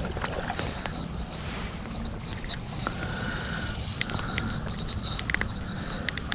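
Wind rumbling on the microphone, with scattered light clicks and a few brief faint high chirps.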